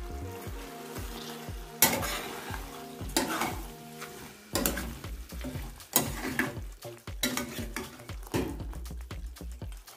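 A spoon stirring fried chicken pieces into a simmering mango stew in a metal pot, scraping against the pot in about six separate strokes over a steady sizzle.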